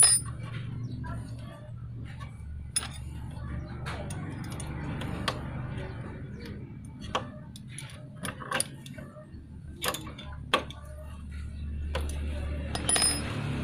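Metal clicks and clinks of a spark plug socket wrench working a motorcycle's spark plug loose, at irregular times, over a steady low hum.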